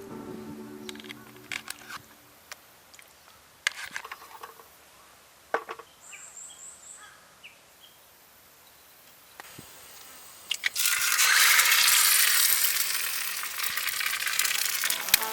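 Camp cooking: scattered light clinks and knocks of cookware and utensils. About eleven seconds in, a loud hissing noise starts suddenly and slowly eases off.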